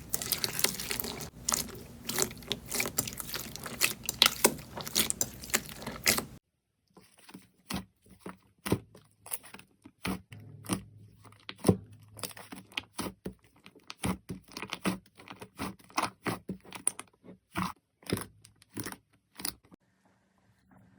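Slime being squeezed and pressed by hand, making dense crunching and crackling for about the first six seconds. After a sudden cut, sharper, sparser pops and clicks follow, a few each second.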